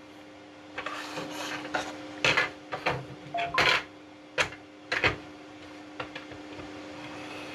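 Hard plastic clicks and knocks as a handheld radio and hand mics are handled and set into a 3D-printed desktop dock: a dozen or so irregular taps over a faint steady hum, thinning out after about five seconds.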